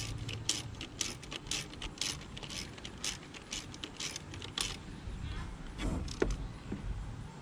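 Socket ratchet wrench ratcheting: a quick, even run of clicks, about four a second, that stops after about four and a half seconds, followed by a few scattered knocks of tools on the engine.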